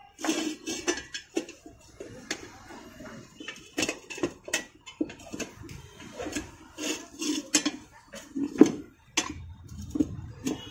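Steel tyre lever clinking and scraping against a scooter's steel wheel rim in irregular metallic knocks, with a few sharper ones, as the tubeless tyre's bead is levered back onto the rim.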